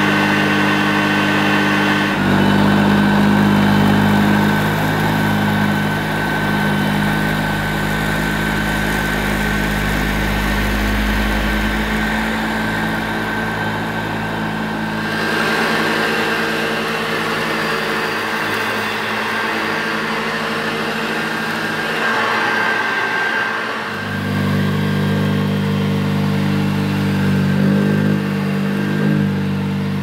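Hoover Exclusive Dirtsearcher 275-watt upright vacuum cleaner running, its motor giving a steady hum with a high whine while its beater brush sweeps rolled oats and tea leaves off the carpet. The hum shifts in tone abruptly a few times, about two seconds in, halfway through and near the end.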